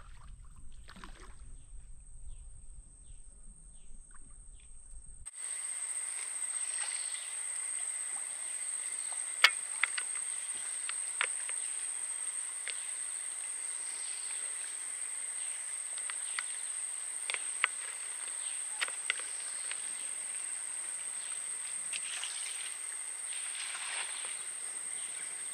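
Steady high-pitched insect chorus that comes in suddenly about five seconds in, with about a dozen scattered sharp clicks and taps, the loudest about nine seconds in. Before it there is only a faint low rumble.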